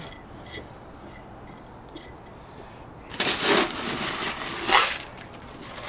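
Gravel scooped out of a plastic bag with a plastic cup, in two noisy bursts in the second half after a quiet start.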